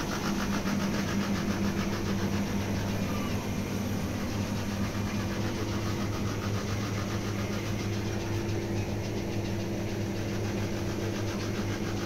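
Steady low mechanical hum with several held low tones, unchanging throughout.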